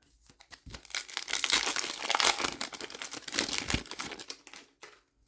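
Foil wrapper of an Upper Deck hockey card pack being torn open and crinkled, a dense run of crackling that stops shortly before the end.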